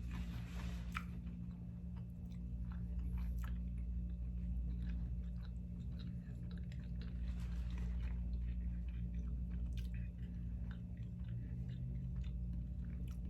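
A person chewing a Flamin' Hot Cheetos sushi roll close to the microphone: many small, irregular wet clicks and soft crunches. A steady low hum runs underneath.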